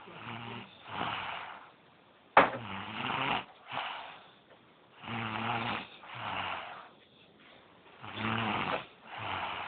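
A sleeping child snoring. Each breath gives a low buzzing snore followed by a softer, breathy breath, about every two and a half seconds, four times. The second snore, about two and a half seconds in, starts more sharply.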